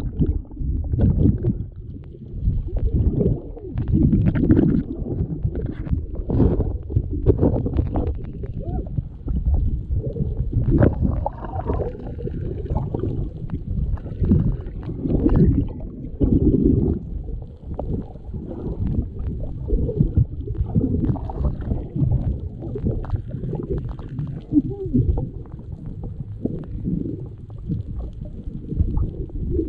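Muffled, low underwater rushing and churning of water against an action camera's housing, swelling and fading unevenly every second or so, as a spearfisher is towed through the current by a speared Spanish mackerel.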